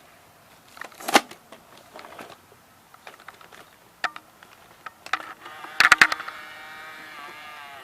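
Plastic clicks and clunks of a full-size VHS camcorder being handled, with its cassette mechanism and buttons worked while a tape is loaded and played. The loudest click comes about a second in, and a quick cluster of clicks comes about six seconds in. A wavering pitched tone follows and runs until near the end.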